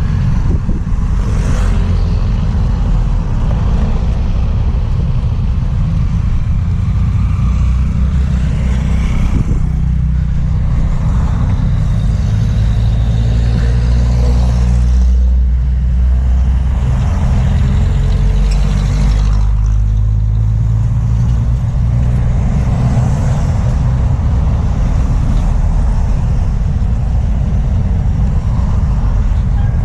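Road traffic: motor vehicles passing close by, their engines making a steady low rumble that swells and fades as each one goes past.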